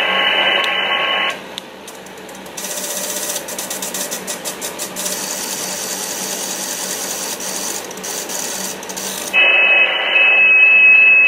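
Xiegu G90 HF transceiver running its automatic antenna tune: the receiver hiss from its speaker cuts off about a second in, and for several seconds the built-in tuner's relays click rapidly over a steady rushing noise while it transmits. Near the end the receiver comes back with band hiss and a steady high tone from a signal.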